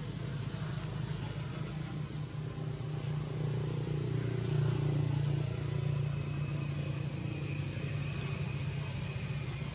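Steady low drone of an engine running, slightly louder around the middle.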